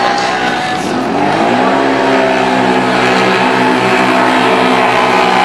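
ATV engines running at high revs. The pitch dips about a second in, then climbs back up and holds steady.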